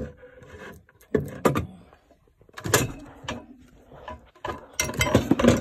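Clear plastic protective cover for a fire alarm pull station being handled, clattering and knocking against a shelf in three short bursts.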